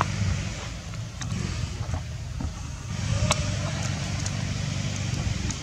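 Low rumbling noise on the microphone of a moving handheld camera, with a few sharp clicks and a short high squeak about three seconds in.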